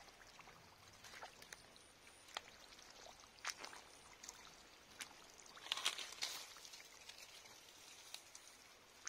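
Faint water splashing and trickling, with scattered small splashes and a denser burst of splashing about six seconds in.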